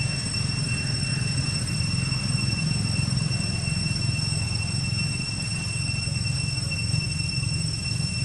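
Steady low rumble with a thin, unchanging high-pitched whine over it, no distinct calls or knocks.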